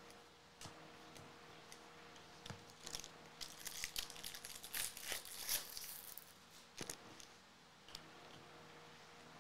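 Foil wrapper of a Bowman Jumbo baseball card pack being torn open and crinkled: a run of crackling from about two and a half seconds in until nearly seven seconds. A few light clicks of cards being handled come before and after it.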